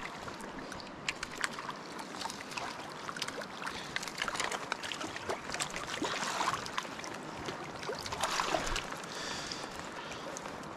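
Water splashing and sloshing close by in a shallow river as a hooked trout is played to the landing net, with a run of sharp little splashes. It grows busier around the middle and again shortly before the end.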